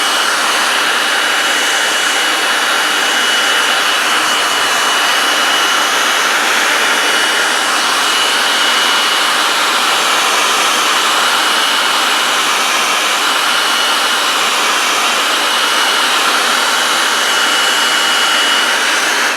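Electric hot-air blower (heat gun or hair dryer) running steadily at full blast with a thin high whine, heating a vinyl magazine wrap so it bonds. It switches off at the very end.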